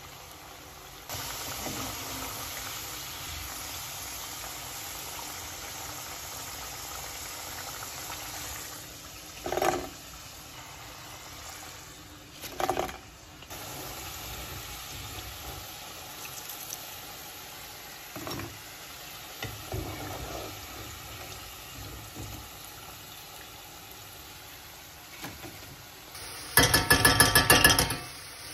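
Potato wedges deep-frying in sunflower oil in a frying pan, a steady sizzle, with two louder knocks of a slotted spoon against the pan partway through. Near the end a spoon clatters rapidly and loudly against a stainless steel saucepan for about a second and a half, as tomato paste is scraped off it.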